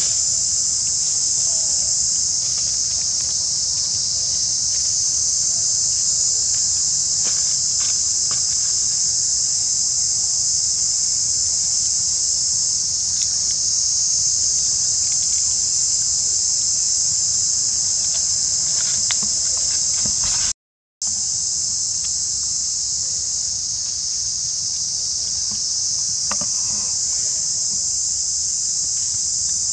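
Steady, high-pitched drone of an insect chorus. It breaks off for under a second about two-thirds of the way through, and a few faint clicks sit over it.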